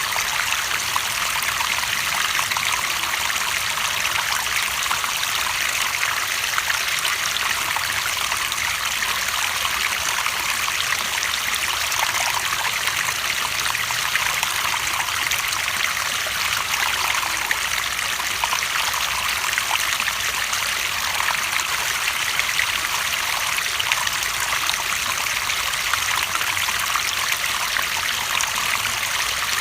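Running water flowing steadily, an even rush with fine splashing detail and no pauses.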